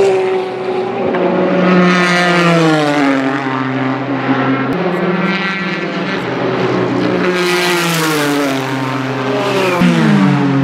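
Several race cars passing at speed. Their engine notes drop in pitch again and again as the cars brake and downshift, with a steadier engine note in between.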